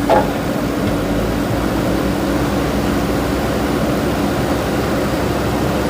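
JCB 3DX backhoe loader's diesel engine running steadily, with one short knock just after the start.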